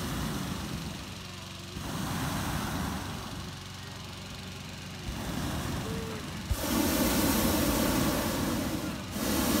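Hot air balloon's propane burner firing: a loud, steady roar starts about two-thirds of the way in, breaks off for a moment near the end and fires again, over a lower background rumble.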